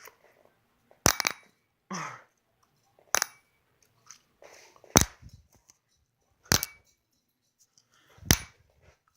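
Five sharp, hard clicks, spaced about one and a half to two seconds apart, with soft rustling between them.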